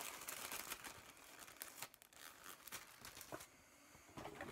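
Faint rustling and crinkling of a paper gift bag being rummaged through by hand, busiest in the first three seconds or so and dying down near the end.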